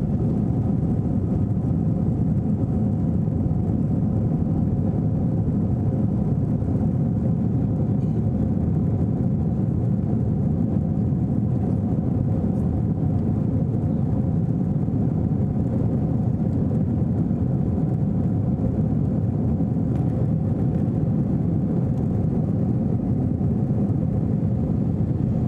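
Steady cabin noise inside an Airbus A321-200 airliner: the twin jet engines and airflow make an even low rumble, with a faint steady hum above it.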